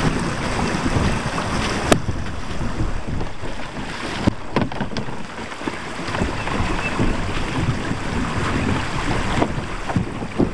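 Creek water rushing and splashing, with wind buffeting the microphone and irregular knocks; one sharp click about two seconds in.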